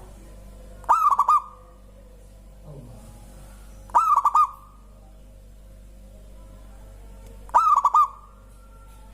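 Zebra dove (perkutut) cooing: three short calls of rapid, trilled coos, about three seconds apart.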